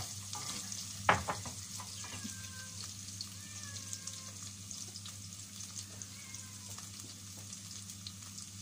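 Chopped garlic sizzling steadily in hot oil in a stainless steel pan as it is sautéed. Early on a wooden spatula scrapes and stirs, and there is a loud knock about a second in.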